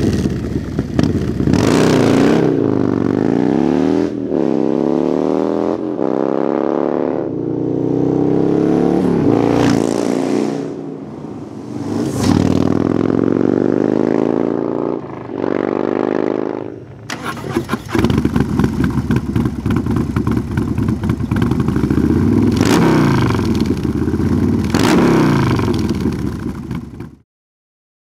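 Harley-Davidson's Moonshine 128-cubic-inch V-twin with a Feuling 521 cam, heard through a Thrashin Supply AR exhaust, revved hard in repeated sharp blips with pitch rising and falling. It then pulls away through the gears, with another run of rising pitch and shifts in the second half. The sound cuts off suddenly about a second before the end.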